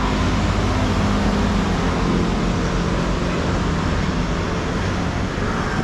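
Steady city-street traffic noise with a low droning hum of engines running.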